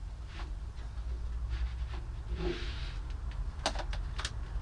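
Handling noises from working on a motorcycle as its fuel tank is lifted: a brief rustle, then a few sharp clicks and knocks near the end, over a steady low hum.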